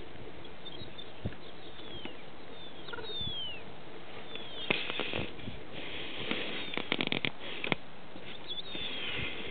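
High whistled calls that slide down in pitch, heard several times over a steady hiss. A quick run of clicks and rustles comes in the middle.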